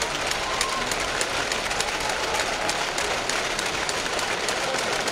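Spectators in an arena clapping and calling out: a steady crowd din with many sharp, irregular claps and a few brief shouts.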